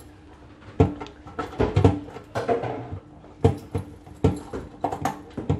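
Irregular metal clicks and knocks from the lockable steel drawer inside a safe being handled, mixed with a bunch of keys jingling.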